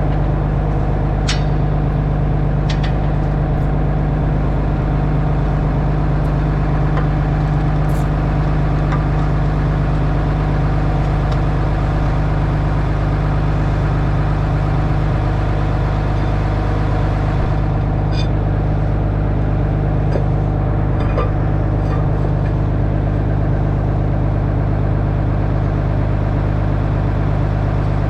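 Diesel tractor engine idling steadily, with a few faint clicks over it.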